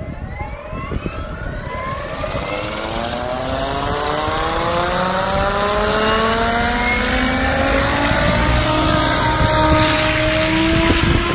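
SAB Goblin Black Thunder 700-class electric RC helicopter spooling up. The whine of its Scorpion brushless motor climbs steadily in pitch over about eight seconds and then holds, over the rush of the spinning main and tail rotors.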